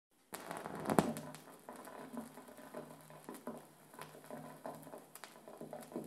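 Turntable stylus riding a vinyl record with no music: surface crackle and pops over a low, steady hum, with one louder pop about a second in.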